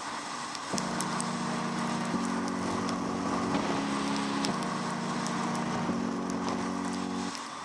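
KTM Super Duke GT V-twin motorcycle engine running at a steady cruising speed under rushing wind noise, its drone changing pitch every second or so, with raindrops ticking against the camera.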